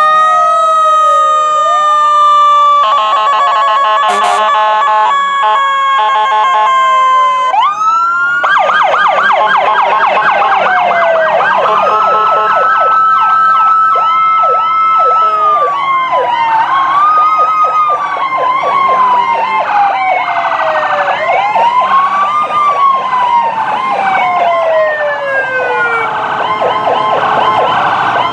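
Several emergency-vehicle sirens sounding at once from passing fire apparatus, ambulance and emergency SUVs. Slow wails rise and fall over a couple of seconds each, overlapping one another. From about eight seconds in, fast yelp sweeps join them.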